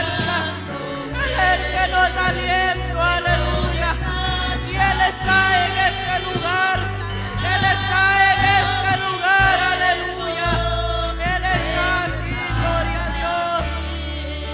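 Gospel worship music: voices singing a melody over sustained low bass notes and drum hits with a steady beat.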